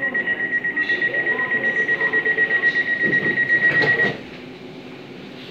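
Door warning beeps on a London Overground Class 710 electric train: a single high tone pulsing rapidly, several beeps a second, that stops about four seconds in.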